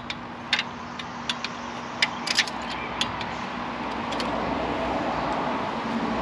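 Sharp metallic clicks and clinks of hand tools on engine hardware: single taps spaced about half a second to a second apart, and a quick double clink about two seconds in. Under them runs a steady background noise that swells slightly in the second half.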